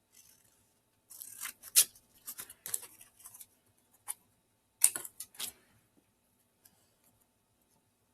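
Scissors cutting paper in two runs of quick snips, one starting about a second in and a shorter one near the middle.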